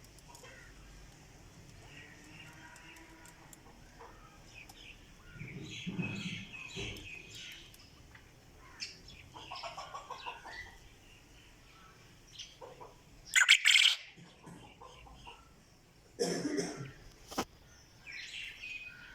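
Quail calling: scattered short chirps and calls, with a loud brief burst about two-thirds of the way through and another louder call soon after.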